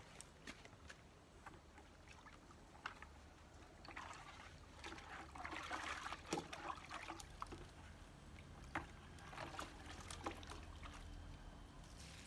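Water being scooped from a plastic bucket with a long-handled dipper and poured out over garden plants, splashing most around the middle, with scattered light knocks.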